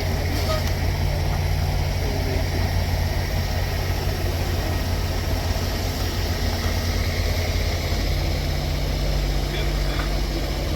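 Semi-truck's diesel engine idling steadily with an even low hum.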